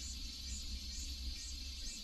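A steady, high-pitched chorus of insects, swelling and fading about twice a second, over a low rumble.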